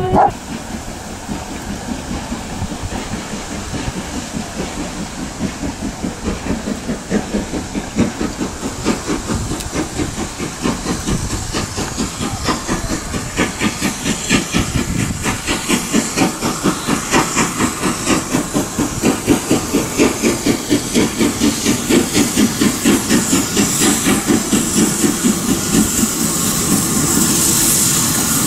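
LNER K1 steam locomotive 62005 working under power as it approaches, its exhaust beats coming in a regular rhythm that grows louder and quicker. Near the end the beats blend into a steady hiss of steam.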